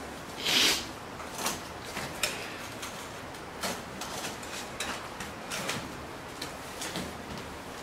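A wooden chair being handled: a short scrape about half a second in, then scattered light clicks and knocks.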